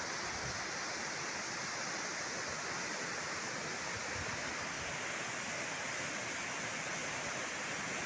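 A waterfall's steady rush, the water pouring down a rock face into a shallow pool.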